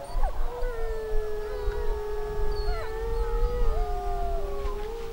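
Several voices howling together like a wolf pack, long held notes that overlap at different pitches and slide up and down, fading out just after the end.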